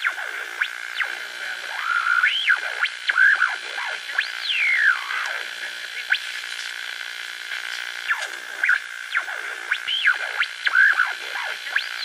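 Eerie electronic music: swooping synthesizer glides rise and fall over a steady high drone, and the phrase repeats about every eight seconds.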